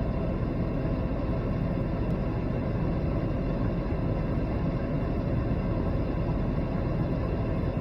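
Steady low rumble of a vehicle on the move, even and unbroken.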